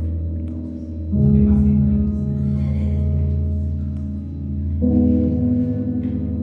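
Music of sustained, ringing chords over a steady low drone, with a new chord coming in about a second in and again near five seconds.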